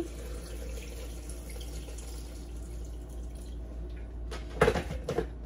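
Water poured from a stainless steel pitcher into a blender jar, a steady splashing pour, followed near the end by a few knocks as the pitcher is set down.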